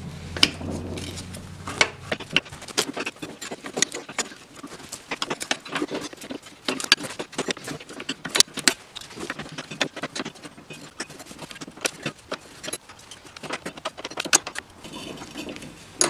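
Wrench clicking and rattling on the bolts of a snowmobile's brake assembly as they are undone: a long run of irregular, sharp metal clicks and taps.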